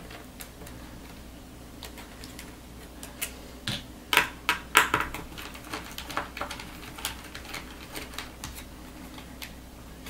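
Irregular light clicks and taps of a small screwdriver backing two screws out of a laptop's metal hard-drive carrier, the loudest few about four to five seconds in.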